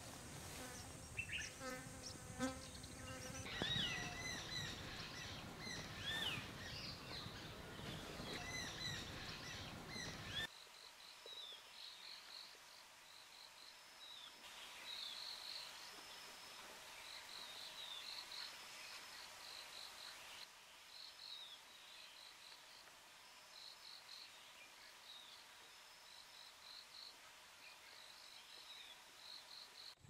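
Wild outdoor ambience: varied bird calls that glide in pitch for about the first ten seconds, then after an abrupt change a quieter stretch of short, high insect chirps repeating over faint buzzing.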